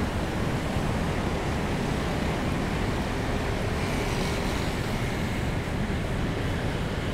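Steady rushing noise of road traffic in the rain, with a higher hiss that swells and fades about four seconds in.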